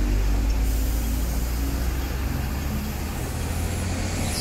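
Double-decker bus engine running close by with a deep steady rumble over general traffic noise, and a short hiss near the end.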